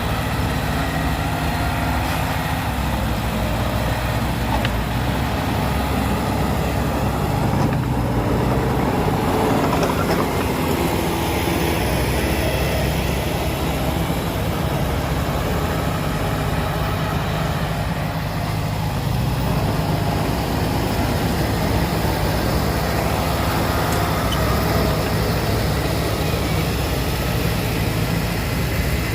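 Heavy diesel engine running steadily with an even low hum, the sound of earthmoving machinery at work.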